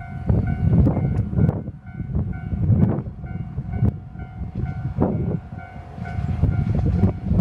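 Yamagata Railway YR-880 diesel railcar approaching, heard as a faint steady hum. Gusts of wind buffet the microphone.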